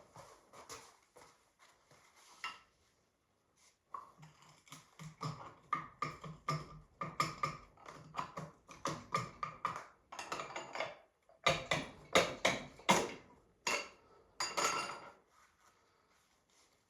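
Metal hand tools and engine parts clinking and clattering in an irregular run of knocks during an engine teardown. The clatter is sparse at first, gets busy about four seconds in, and dies away near the end.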